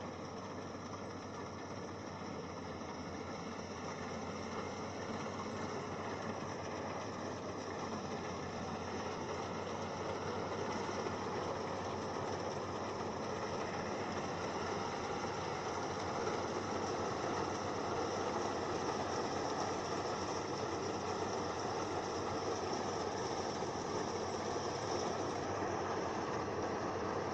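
Yanmar AW82V rice combine harvester running steadily while cutting rice, growing louder about ten seconds in as it comes closer.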